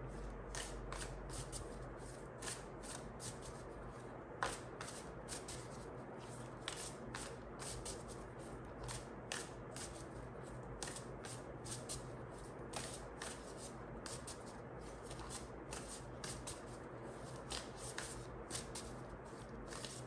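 A deck of tarot cards shuffled by hand: a long, irregular run of soft card flicks and riffles.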